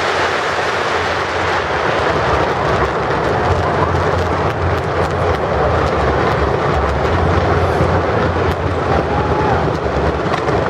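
A massed barrage of fireworks fired from a skyscraper overhead: a loud, continuous rumble of overlapping blasts with dense crackling running through it.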